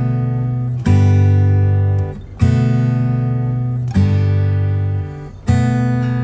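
Background music: acoustic guitar strumming chords, a new chord struck about every one and a half seconds and left to ring and fade.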